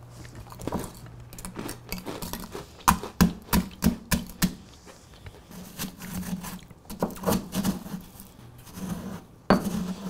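Stone pestle pounding and grinding dry chocolate cookie pieces into crumbs in a stone mortar: sharp knocks, a quick run of them in the middle and another near the end, with gritty grinding between.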